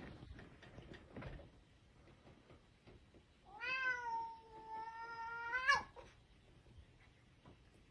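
A domestic cat's single long meow of about two seconds, its pitch rising at the start, held steady, then rising sharply as it ends.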